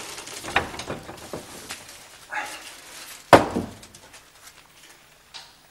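A man's movements: footsteps and rustling with a few light knocks, then one loud thump a little over three seconds in as he sets down or hangs up his shoulder bag.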